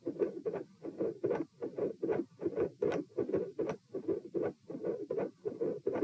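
Heartbeat heard through a stethoscope at about 72 beats a minute. Each beat is a short group of sounds: the first heart sound, a mid-systolic click and a split second heart sound. A mid-systolic click is typical of mitral valve prolapse.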